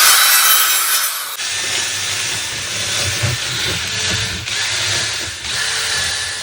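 Power tool working wood, changing about a second and a half in, when a lower hum joins it.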